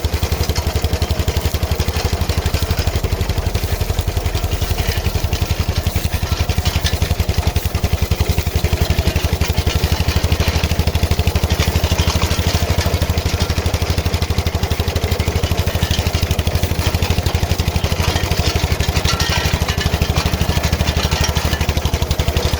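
MTZ-05 walk-behind tractor's single-cylinder four-stroke engine running steadily with an even rapid beat, driving a PTO-powered KM2 potato digger on test after repair.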